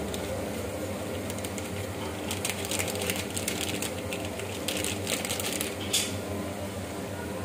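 Crinkling and crackling of a foil spice packet as masala powder is shaken out of it into a steel pan of vegetables: irregular clicks and rustles, the sharpest about six seconds in.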